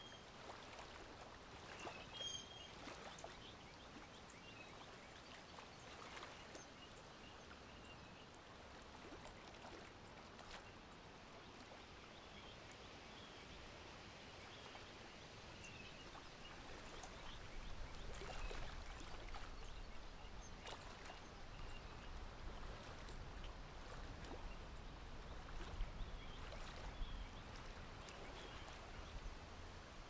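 Faint lakeside ambience: a soft steady hiss of breeze and water with scattered brief bird chirps. A low rumble comes in about halfway through.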